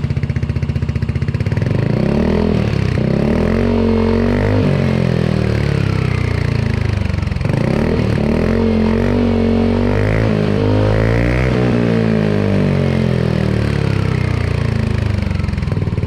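Yamaha NMAX 155 scooter's single-cylinder four-stroke engine breathing through an Ixil aftermarket silencer with its dB killer fitted. It idles briefly, then is revved up and eased back down in two slow swells before settling back toward idle.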